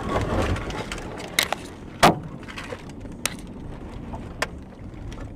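Steady road and engine noise heard from inside a moving car, with a rush of noise at the start and four sharp knocks spread through it, the loudest about two seconds in.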